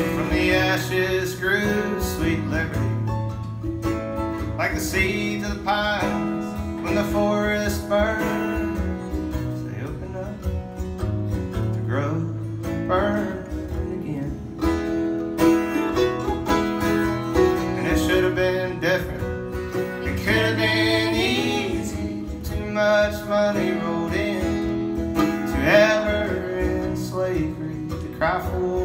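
Live acoustic folk music: acoustic guitar strumming with mandolin playing, and a singing voice at times.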